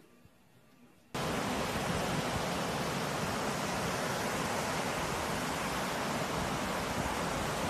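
Steady beach ambience: an even, loud rush of surf and wind that cuts in abruptly about a second in, after near silence.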